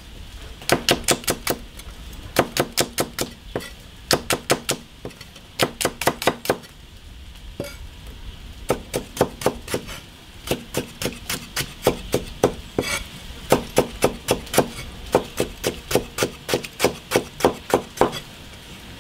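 Kitchen knife chopping garlic and pickled ginger on a cutting board: runs of quick, even knocks at about four or five a second, broken by short pauses.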